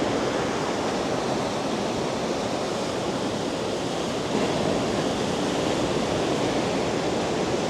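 Heavy ocean surf breaking below the cliffs: a steady, continuous rush of waves.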